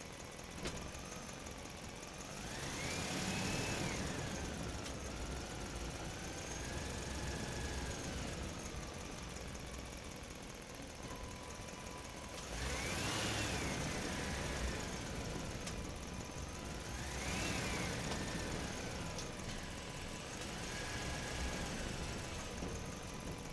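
Truck driving through a concrete parking structure, its engine swelling and fading four times as it moves, each time with a whine that rises and then falls in pitch.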